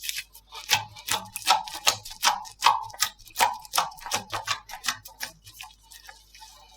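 Slime being squeezed and worked by hand, giving a run of sharp clicks and pops, about three a second, that thin out and fade near the end.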